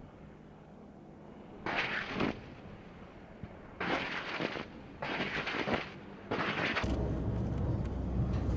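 Boeing AH-64 Apache's 30 mm M230 chain gun firing four short bursts, each lasting well under a second and made of rapid shots. Near the end a steady low rumble takes over.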